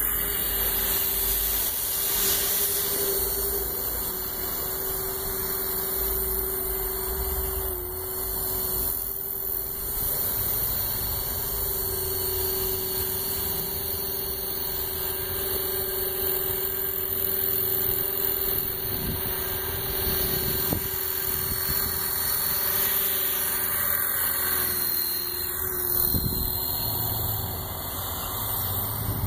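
Electric 450-size RC helicopter (E-Razor 450) in flight: a steady whine from its motor and rotors that holds nearly one pitch, dipping briefly twice.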